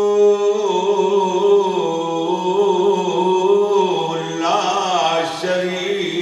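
A man chanting in a melodic recitation style, holding one long note and then moving into a winding, rising and falling line.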